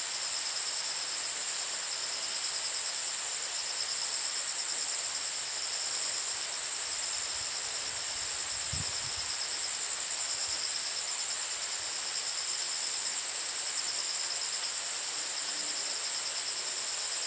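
Insect chorus: a steady, shrill high-pitched drone with a second, finely pulsing trill just beneath it, over a soft even hiss.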